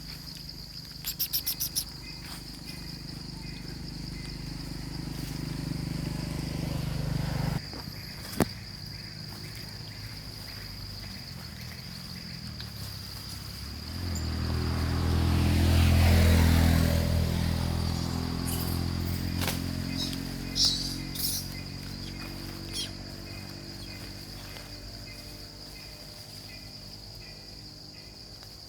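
Insects keep up a steady high-pitched drone. About halfway through, a low hum swells to its loudest and then slowly fades, and a few brief clicks and chirps come and go.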